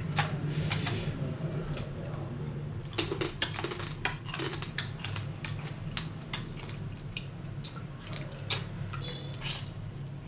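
Close-up eating sounds: chopsticks and a spoon clicking and scraping irregularly against a metal tray, with chewing and sucking of salted crab salad in between.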